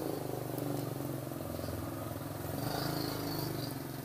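A motor vehicle engine running steadily, a low pulsing drone that holds at an even level.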